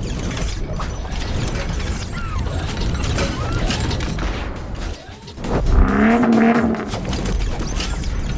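Power convertible top mechanism of a 2005 Chrysler Crossfire Roadster running: a steady low hum from the hydraulic pump with clicks and creaks from the top's linkage. A louder rising creak comes about five and a half seconds in and lasts over a second.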